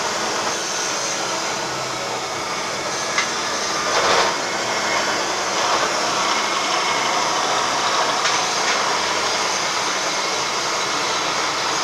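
Steady rushing, hissing noise, like a machine's blower or motor running, with a faint click about three seconds in and a brief louder rasp about four seconds in.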